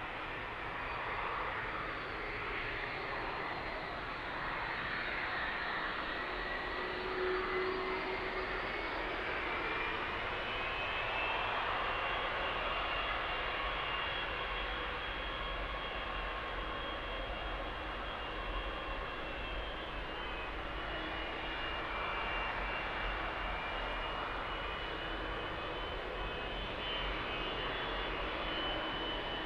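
Boeing 757 jet engines running steadily, a continuous rush with a high whine on top that rises slightly in pitch about a third of the way in, then holds steady.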